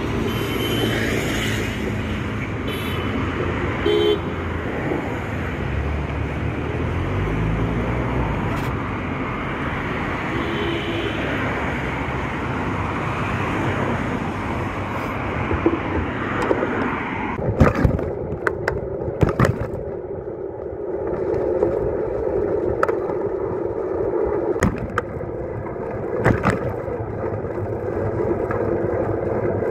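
City street traffic noise with a few short horn-like toots. After an abrupt change partway through, a steady riding hum from a bicycle on a bike lane, broken by a run of sharp knocks and rattles over bumps.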